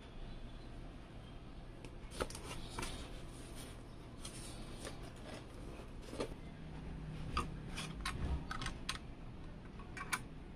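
Handling noise from a motherboard being moved about in its cardboard box: scattered light clicks and taps, thickest toward the end.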